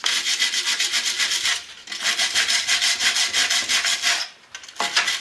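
Rapid back-and-forth scrubbing with an abrasive on the cracked top neck of a Ford 8N tractor radiator, cleaning the metal for soldering; the strokes stop briefly twice.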